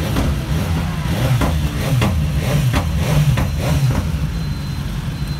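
Several motorcycle engines running, with a quick series of short throttle revs through the middle.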